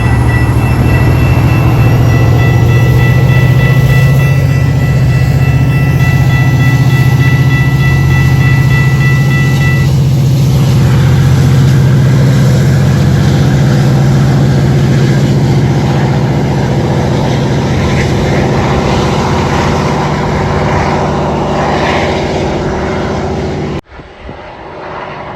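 Metra diesel locomotive and its train passing at close range. The horn sounds a long held blast that stops about ten seconds in, while the engine runs loud and the cars rumble by. The sound cuts off abruptly near the end.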